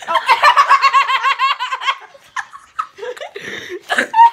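Boys laughing hard: a loud, high-pitched, rapidly repeating cackle for about the first two seconds, then shorter, broken laughs.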